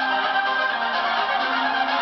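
Karaoke backing track of a pop song playing an instrumental break, with sustained chords held at a steady level.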